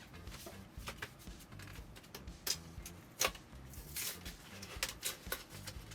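Light, irregular clicks and taps of plastic body-filler spreaders and mixing tools being handled, with a couple of sharper clicks about two and a half and three seconds in.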